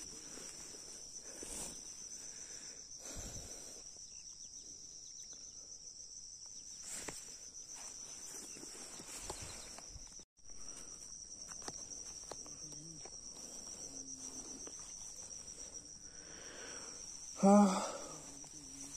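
Steady high-pitched chorus of insects chirring in a fine, even trill, broken off briefly about ten seconds in. A short human voice sounds once near the end.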